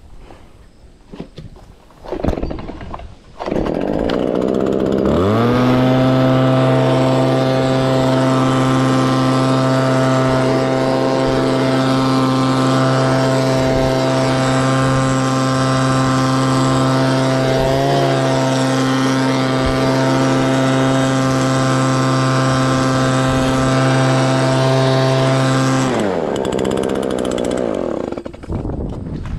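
Combine harvester's engine and drive winding up to speed about five seconds in, running at a steady pitched hum for some twenty seconds, then winding down near the end.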